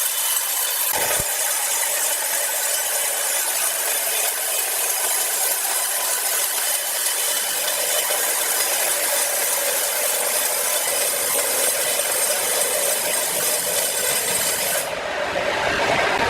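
Power saw cutting through a large log, a steady dense sawing noise. Near the end the sound changes abruptly: the highest hiss drops away and a lower rumble comes in.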